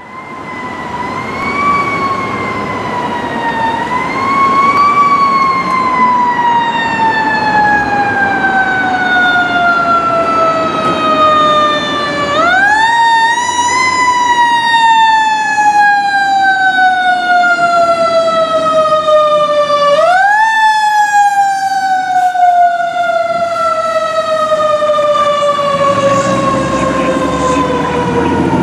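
Fire engine siren wailing on an emergency response: its pitch climbs, then falls slowly over several seconds, and is wound up again sharply twice, about twelve and twenty seconds in. A low rumble from the truck grows under it near the end as the engine passes.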